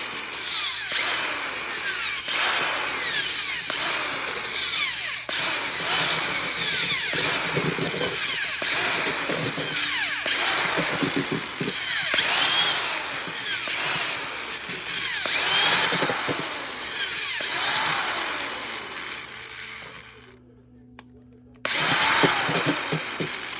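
Electric drill spinning a cake-mixer beater through dirt and fertilizer, a steady gritty churn of soil against the beater. It stops about twenty seconds in and starts again a second and a half later.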